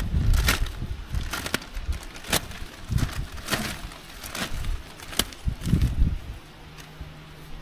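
Irregular crinkling, rustling and knocks from a plastic bag of Black Kow cow-manure compost being handled beside a planter. A faint low steady hum comes in near the end.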